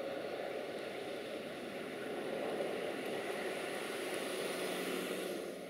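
Boeing 737-800's CFM56-7B turbofan engines at climb thrust as the airliner climbs out after takeoff, a steady rushing roar that drops in level near the end.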